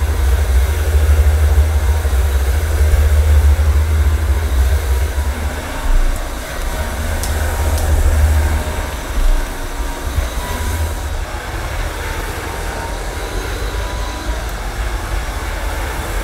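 AirCraft PowerGlide cordless hard floor cleaner running, its twin rotating microfibre pads spinning against a cushioned vinyl floor: a steady low rumble with a faint whine, heavier for the first half and lighter after.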